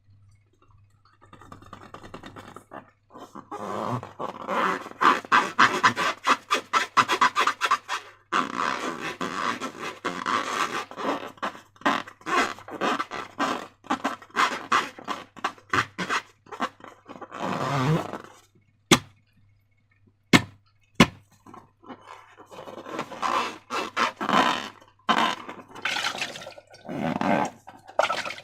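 Slime being squished and worked by hand, with dense runs of wet crackling and popping that stop and start in short gaps. A little past two-thirds through come three sharp clicks in quick succession.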